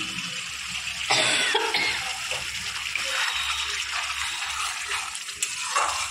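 Masala paste sizzling as it fries in an aluminium kadai, a flat spatula stirring and scraping through it; it is the roasting (bhunna) stage of the curry. A brief louder sound comes about a second in.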